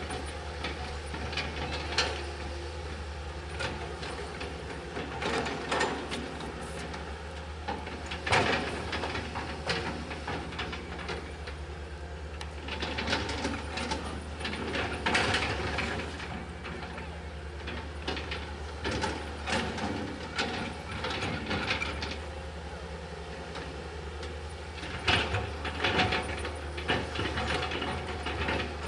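Tracked hydraulic excavator working a soil slope: its diesel engine runs with a steady low hum while the bucket scrapes the earth and its linkage gives irregular metallic clanks, the sharpest about 2, 8 and 15 seconds in and twice near the end.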